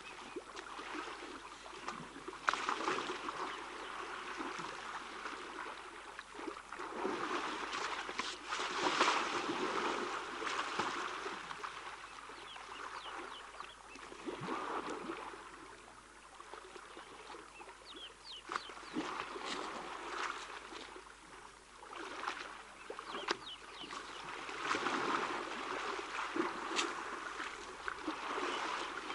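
Young African elephants sloshing and splashing in a shallow waterhole as they wallow and wrestle; the water noise swells and fades every few seconds. Thin bird chirps come now and then.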